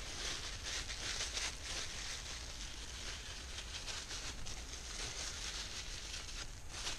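Plastic bag and thin plastic sheeting crinkling and rustling steadily as gloved hands handle the deer cape inside it, full of small rapid crackles.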